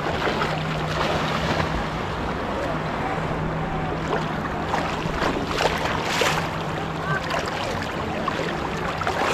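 Shallow sea water swishing and splashing around a man as he wades in and dives under, with a louder splash about six seconds in. A low steady hum runs underneath.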